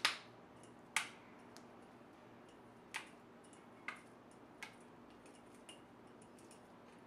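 Wire cutters snipping the leftover plastic nubs off the edges of a piece of egg crate (plastic light-diffuser grid), six sharp snaps at uneven intervals, the first two loudest.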